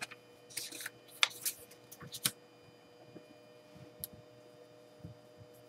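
Faint rustling and scraping of paper being handled, then a marker making a few short strokes and ticks on paper. The sounds are quiet and intermittent, busiest in the first two seconds.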